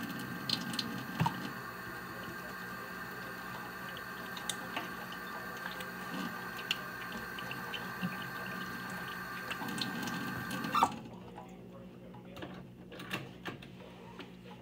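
Kitchen tap running steadily, with small clicks and knocks over it, shut off with a sharp click about 11 seconds in; a faint hum and a few light clicks remain after.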